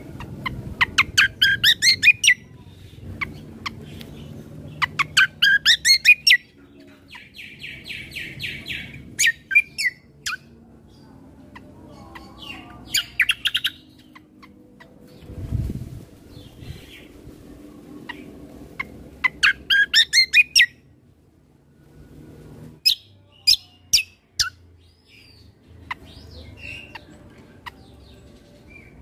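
Kecial kombo (cucak kombo) songbird singing in loud phrases of rapid rising whistled notes, each about a second and a half long. Between phrases come a buzzy trill and sharp single chirps. A low thud sounds about halfway through.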